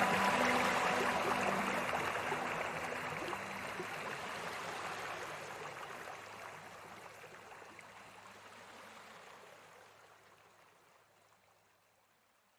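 Flowing river water, a steady rushing that fades out gradually to silence over about eleven seconds.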